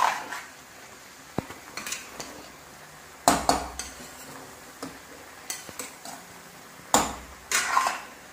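Metal spatula stirring chicken frying in a pan, scraping and knocking against the pan in irregular strokes, the loudest about three and seven seconds in.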